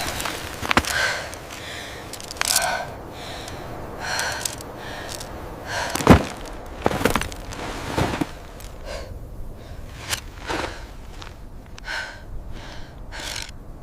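A person gasping and panting hard, one heavy breath after another, with a sharp thump about six seconds in.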